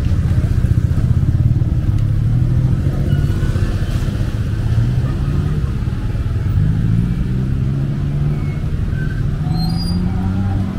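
Close street traffic: the low running of car, jeepney and motorcycle engines. From about six and a half seconds in, one engine's pitch rises steadily as a vehicle pulls away.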